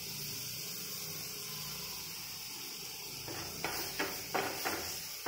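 Onion-and-spice masala sizzling steadily in a non-stick frying pan as chopped green capsicum is added. From about three seconds in, a wooden spatula scrapes and stirs through the pan in a quick series of strokes.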